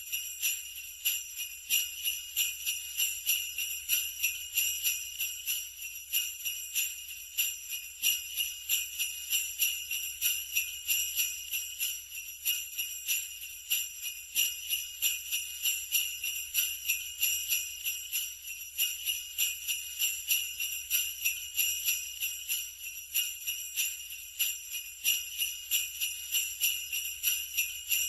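Sleigh bells jingling steadily in an even rhythm of shakes, roughly three a second.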